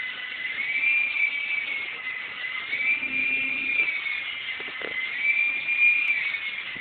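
Small electric remote-control helicopter's motor and rotors whining, the pitch rising and falling in slow waves about every two seconds.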